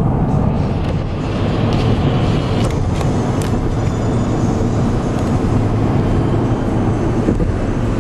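Car cabin noise while driving on a highway: a steady low rumble of road and engine noise.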